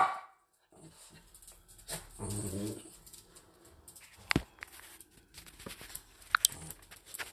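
Small dogs whimpering faintly in excitement over a treat, with a few sharp clicks and rustles of the treat being handled.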